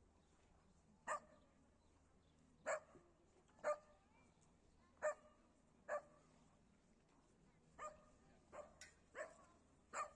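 A dog barking repeatedly: about ten short barks at uneven intervals, roughly one a second, with a quick cluster of three near the end.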